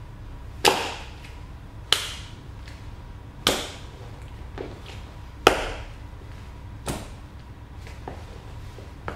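Cowboy boots stamping on green grapes on a tile floor: about five sharp knocks as the steps land and crush the grapes, then a few lighter ones near the end.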